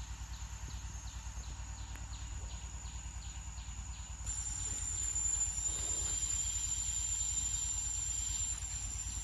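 Forest insects chirping in a steady rhythm, with a high steady buzz that grows louder about four seconds in.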